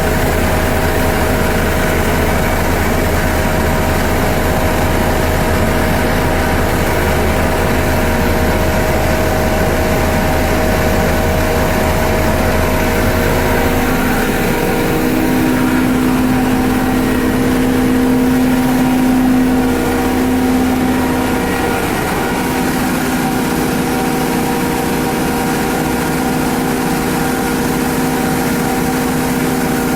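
Coriander grinding mill and vibro sifter running: a loud, steady machine hum carrying several steady tones. About halfway through, the deep low hum drops away and a higher steady tone grows stronger.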